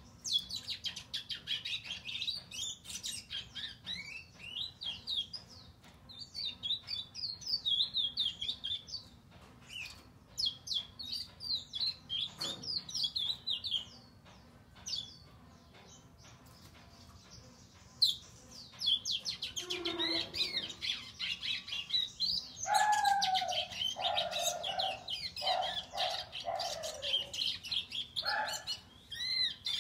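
Young male chestnut-bellied seed finch (curió), just past its first molt, singing its early song notes: runs of quick high chirps and twitters, a lull of a few seconds partway through, then lower whistled notes mixed in with the high ones.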